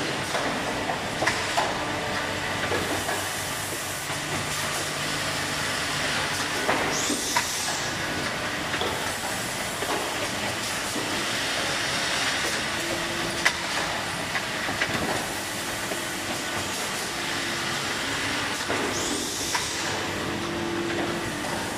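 Woodworking panel line with a Biesse RBO through-feed drilling machine running: a steady mechanical clatter of small clicks and knocks with short motor hums, and two short pneumatic hisses, one about seven seconds in and one near the end.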